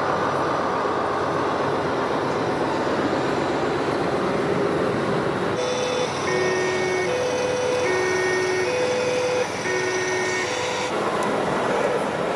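Two-tone siren of an RC model Volkswagen T2 ambulance, alternating between a high and a low note about every ¾ second for about five seconds from roughly halfway through, over a steady rushing background noise.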